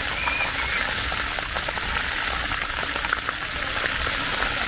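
Fountain jets arcing and splashing steadily into a shallow pool of water, a constant hiss of falling water.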